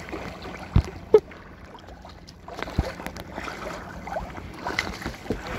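Choppy lake water splashing against a sea kayak's hull as it is paddled, with two sharp knocks on the hull about a second in.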